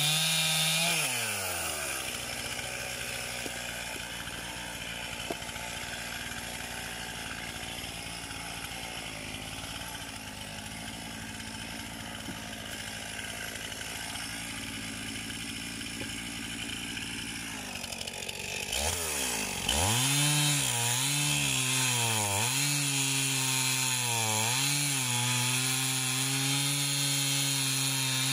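Two-stroke chainsaw finishing a cut through a firewood log and dropping back to a steady idle for about sixteen seconds. It then revs up and cuts into another log, the engine pitch dipping and recovering as the chain bites, until the throttle is released at the very end.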